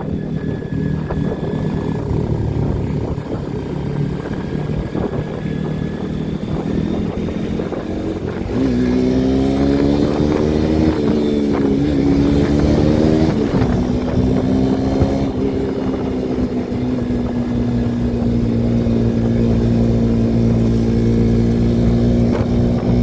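Bajaj Pulsar NS200's single-cylinder engine idling, then revved up about eight or nine seconds in with a few wavering blips, then held at steady raised revs. The revs fall back right at the end.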